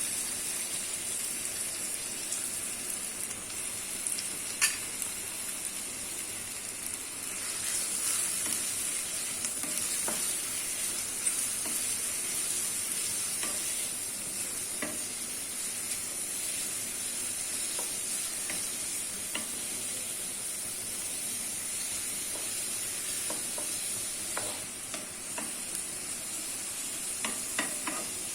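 Chopped onions sizzling in hot oil with cumin seeds, stirred in the pan, with scattered clicks of the spoon against the pan over a steady frying hiss.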